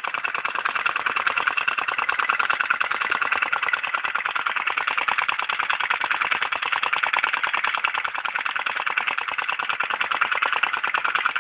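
Model flame eater engine running steadily on its flame, with a rapid, even clicking clatter.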